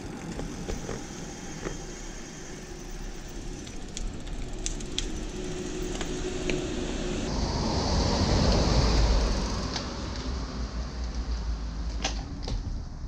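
Road noise from riding a road bike: wind on the microphone and a deep rumble that swells to its loudest about nine seconds in and then eases off, with scattered small clicks.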